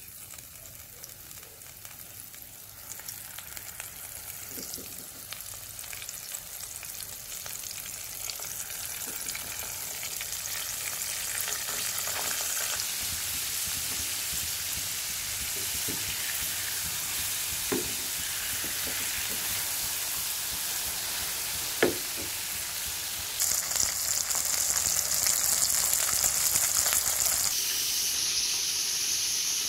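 Flour-coated Bombay duck (ikan lumek) deep-frying in hot oil in a pan: a dense, steady sizzle that grows louder as the frying goes on. It is broken by a couple of sharp clicks.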